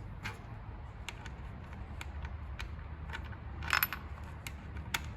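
Light clicks and a brief clatter of plastic and metal as the air filter cover is fitted back onto the mini dumper's petrol engine, the loudest clatter about four seconds in.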